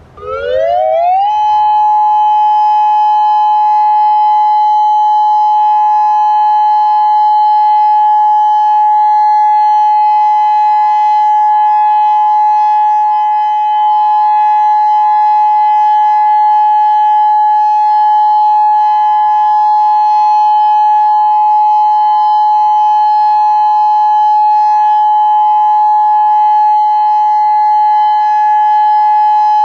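Federal Signal Modulator 6024 electronic outdoor warning siren sounding its loud Full Alert steady tone. It sweeps quickly up in pitch over about the first second and a half, then holds a steady two-note chord.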